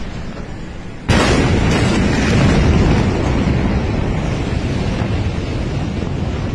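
A massive explosion's blast reaching a phone's microphone about a second in: a sudden, overloading boom that runs on as a loud, sustained rumble and rush of noise.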